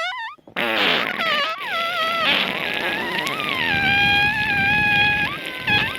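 Real recorded farts, edited and layered into a pitched sequence. A wavering tone breaks off, a loud fart bursts in about half a second in, and its pitched tones glide down and then hold steady. Another short fart burst comes near the end.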